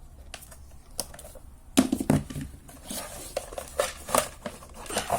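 Hard plastic and metal parts of a vacuum cleaner clicking and clattering as its cord-reel drum is worked loose and pulled out. A few light clicks at first, then a busier run of knocks and rattles from about two seconds in.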